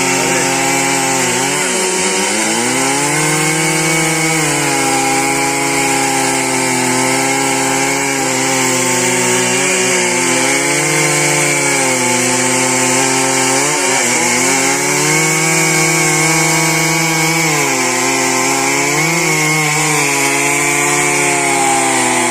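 Large two-stroke Stihl chainsaw running at high revs while cutting a trembesi trunk, its engine note sagging and recovering every few seconds as the chain bogs under load in the wood.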